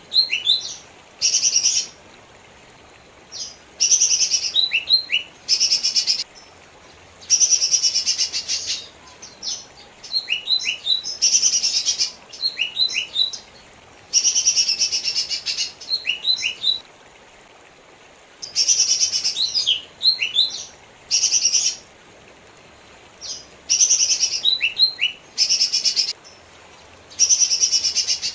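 Lesser green leafbird (cucak ijo mini) singing. Phrases of dense, scratchy chatter alternate with quick, sharp falling whistles, a new phrase every couple of seconds.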